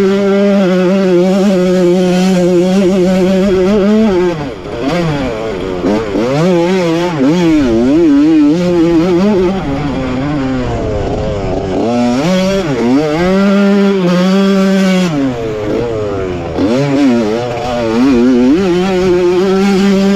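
1985 Honda CR125's single-cylinder two-stroke engine at race pace. It is held at high revs for about four seconds, then the throttle is chopped and it revs rapidly up and down. Around two-thirds of the way through it is held high again before more rapid rises and falls.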